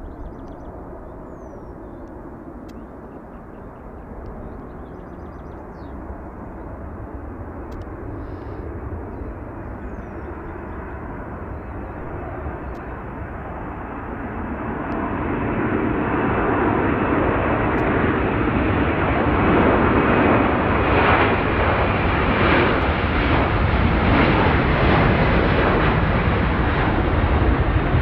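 Airbus A330 jet engines at take-off power during the take-off roll: a steady jet noise that grows much louder about halfway through and stays loud as the airliner lifts off.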